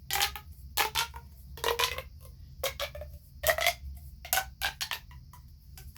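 Plastic pop tubes being stretched and bent, their ribbed sections snapping open and shut in a string of short clicking pops about once or twice a second.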